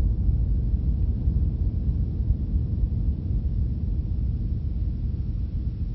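Deep rumble of an atomic bomb explosion, a low continuous roll that slowly fades.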